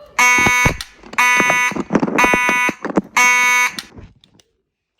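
Fire alarm horn sounding loud, evenly spaced blasts about once a second in a slow march-time coding, then cutting off near the end. Knocks and clatter sound between the blasts.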